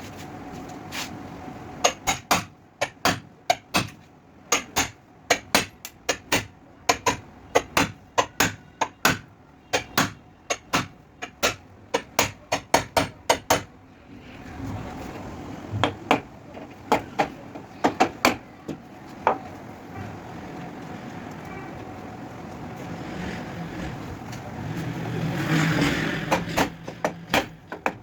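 Hammer blows on a car's sheet-metal body panel, struck in quick runs of two to three a second with short pauses, then more spaced out. About 25 seconds in, a rushing noise swells briefly before the knocking resumes.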